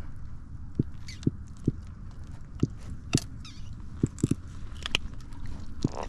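Irregular dull knocks, about ten over six seconds, with a few sharp clicks mixed in, as a hook is worked and cut out of a large redfish held in a rubber-mesh landing net against a plastic kayak.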